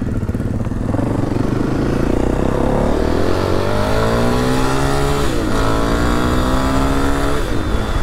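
Adventure motorcycle engine accelerating under load, its pitch climbing steadily, dropping with an upshift about five seconds in, then climbing again before another shift near the end.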